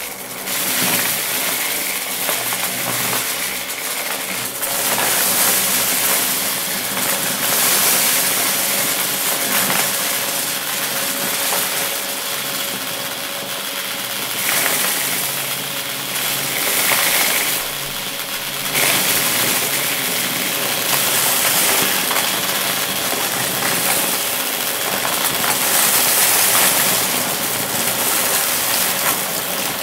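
Dyson ball upright vacuum cleaner running with a steady motor whine, sucking up a pile of small crunchy debris that rattles up through the cleaner head in repeated surges.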